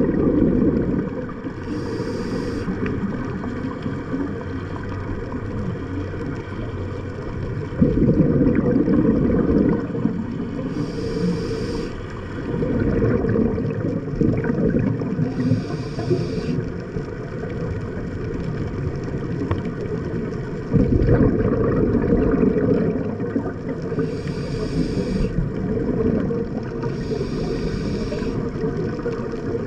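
Scuba regulator breathing heard underwater: a short hiss on each inhale, five in half a minute, and louder bursts of bubbling on the exhales, over a steady low rumble of the water.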